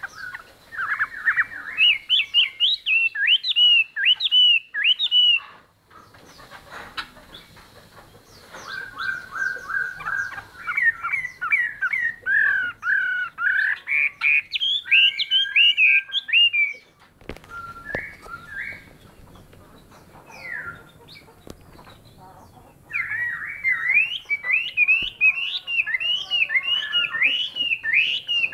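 Chinese hwamei singing: long bursts of rapid, varied notes sliding up and down, with a short lull of a few scattered notes past the middle.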